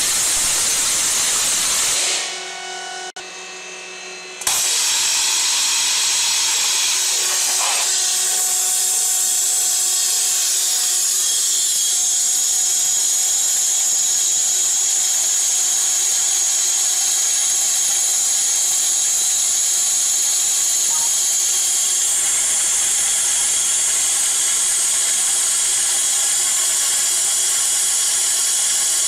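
Waterjet cutter's high-pressure jet cutting through a steel box-section tube: a loud, steady high hiss. It drops away briefly about two seconds in, then comes back and holds steady.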